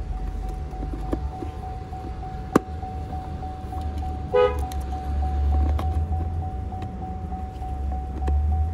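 Car running at idle with a steady low rumble and a thin steady whine. A single sharp click comes about two and a half seconds in, and a brief horn toot about four seconds in.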